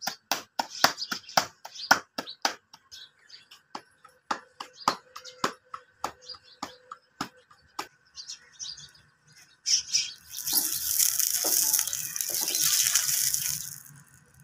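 Paratha dough slapped and patted between the palms, sharp claps about three a second that thin out and stop around eight seconds in. About ten seconds in, liquid on the hot iron tawa sizzles loudly for about four seconds.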